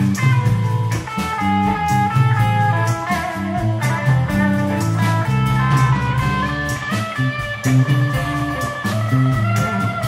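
Blues band playing live: electric guitar lines over bass and a drum kit keeping a steady beat.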